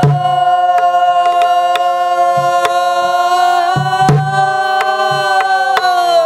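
Pansori sung by a group of voices in unison, holding one long note that bends slightly and falls away near the end. Under it a buk barrel drum is struck in an uneven rhythm of single strokes.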